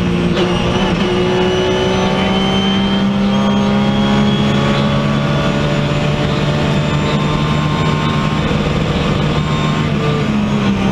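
Porsche 911 GT3's flat-six engine, heard from inside the cabin, running hard at speed. Its pitch steps down about halfway through and jumps back up near the end, as the car changes gear.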